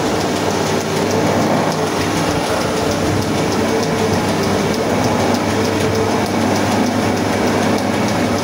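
Electric wood lathe running, spinning a long wooden blank as it is turned round, with a steady motor hum under a dense grinding noise and light, evenly repeated ticks.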